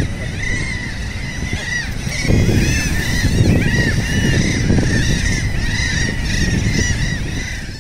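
A flock of seabirds giving short, arched cries over and over. A low rushing noise joins about two seconds in.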